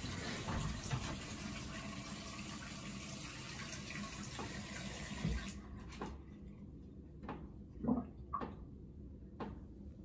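Hot water running from a bathroom sink faucet into the basin, shut off sharply about halfway through. After it stops, a few scattered light clicks and taps.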